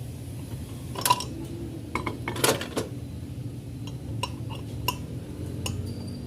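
Metal parts clinking and tapping: a scattering of sharp clinks, irregularly spaced, as the miter saw's blade fittings (ring, washer, locking bolt) are handled and fitted back on during a blade change.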